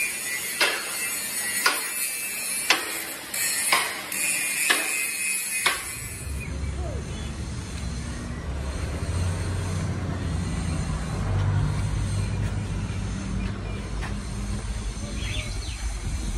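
Angle grinder on steel, a high hiss with sharp knocks about once a second, for the first six seconds. After a cut, a steady low rumble like a running engine.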